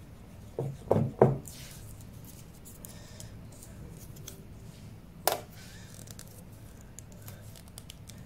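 Marker and whiteboard handling: three short knocks in the first second and a half, a brief rubbing hiss, then a single sharp click about five seconds in.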